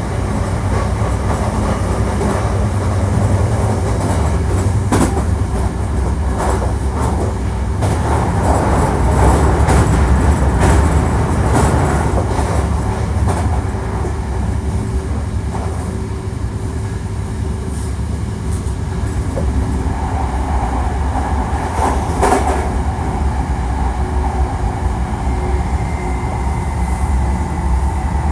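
Hankyu 1300 series electric train running at speed: a steady rumble of wheels on rail, broken by several clicks from rail joints, with a faint steady whine in the last few seconds.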